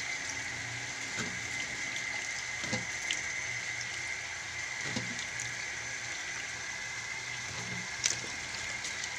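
Tap water running steadily into a stainless steel sink while a hand sloshes chopped vegetables in a steel bowl of water, with a few brief splashes and knocks.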